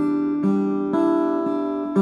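Acoustic-electric guitar played through an Aroma AG-15A 15-watt acoustic guitar amp with a 5-inch speaker: chords ringing out, a new one struck about every half second.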